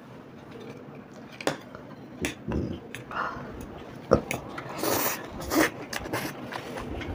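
Noodle eating at close range: forks clicking and scraping on the plates in scattered short knocks, with chewing and slurping of chow mein noodles.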